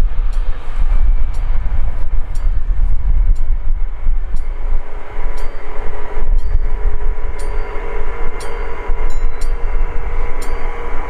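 A train passing close by: a loud rumble with a sharp click about once a second. A steady whine joins about halfway through.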